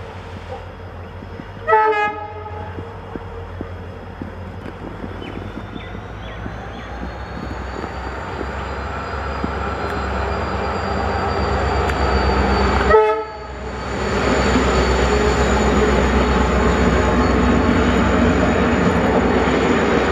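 Twin WDP4 diesel locomotives, with EMD 710 two-stroke engines, approaching and passing at the head of a passenger train. Two short horn blasts sound, about eleven seconds apart. The engine rumble and wheel noise build steadily and are loudest in the second half as the locomotives go by close.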